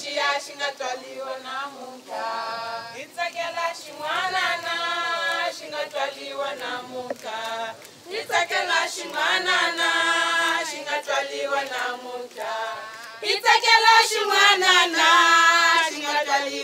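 A group of women singing a song together in unison, unaccompanied, in repeated phrases that rise and fall. The singing swells louder about two-thirds of the way through.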